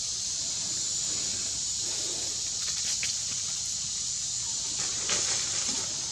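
Steady high-pitched hiss of outdoor forest ambience, with a few faint rustles of the macaques shifting on dry leaf litter about three seconds in and again about five seconds in.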